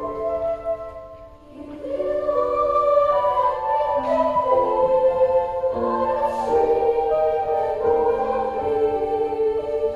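A middle-school children's choir singing in parts, holding long notes. The sound falls away briefly about a second in, then the voices come back in on the next phrase.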